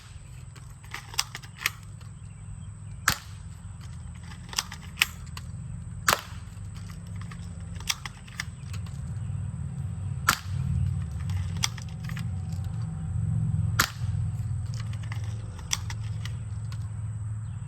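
Airsoft gun firing single shots, a dozen or more sharp cracks spaced irregularly a second or two apart, a few louder than the rest, over a low steady rumble.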